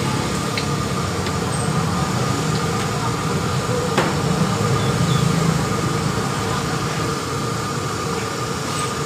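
Gas wok burner running steadily under a wok of heating oil, with one short click about four seconds in.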